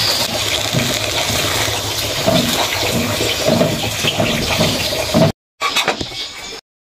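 Water spinach sizzling and bubbling in a hot wok just after water has been added, a steady hiss as it is stirred. Near the end, after a break, a few short clinks.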